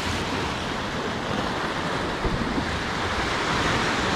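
Sea surf washing and breaking over rocks at the shoreline: a steady rush of water.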